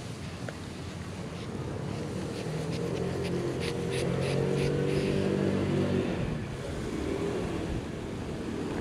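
A motor vehicle's engine hum that grows louder over a few seconds and then fades again, as a vehicle driving past, with a few light clicks in the middle.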